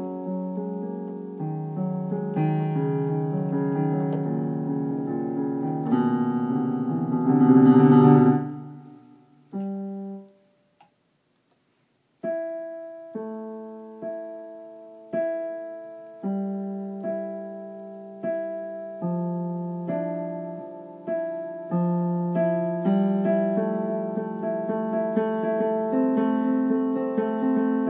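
Digital piano played in full, sustained chords that build to their loudest about eight seconds in, then die away to a single note and a short silence. A slower passage follows, with a note or chord struck about once a second, getting fuller towards the end.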